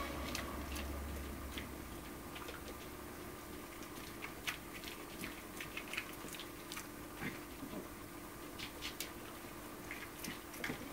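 Small white terrier chewing pizza crust taken from a hand: irregular, short crunching clicks of its teeth.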